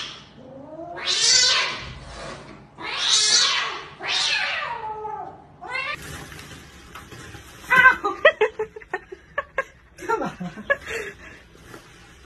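Two cats yowling at each other in a standoff: about five long, loud, wavering yowls, one after another. About six seconds in the sound changes to a string of quick clicks and short, softer noises.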